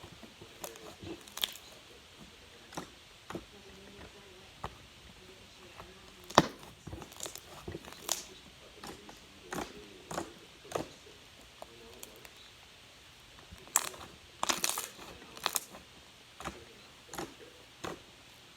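Slime being squeezed and stretched by hand, giving irregular sticky crackles, pops and clicks, with the sharpest pop about six seconds in and a quick run of them near the end.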